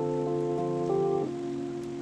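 Background music of sustained held chords, changing chord just past a second in, over a faint steady hiss of rain.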